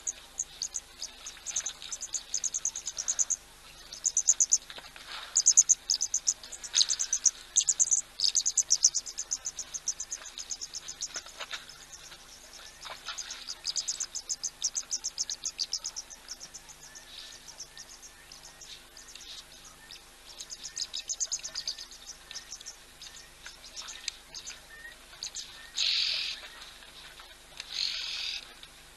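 Wild animals chirping and trilling in rapid, high-pitched bursts, with two short, harsher calls near the end. A faint steady hum runs underneath.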